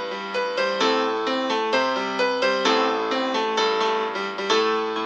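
Background music: a piano or electric keyboard playing a quick run of notes.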